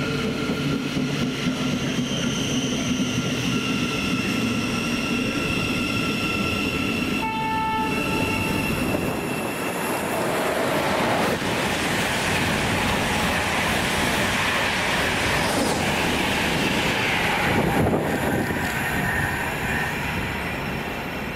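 A train passing at speed on the rails, its rushing wheel and air noise building to a peak near the end. A brief horn tone sounds a little after seven seconds in.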